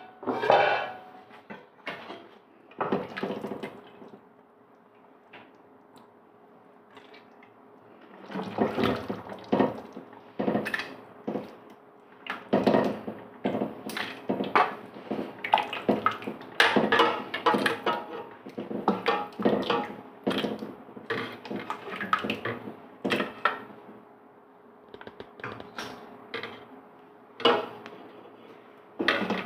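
Curry broth being scooped from a large aluminium stockpot and poured into a serving bowl: irregular splashing and pouring of liquid with clinks of the metal bowl and ladle against the pots, busiest from about 8 seconds in, with a quieter pause before it.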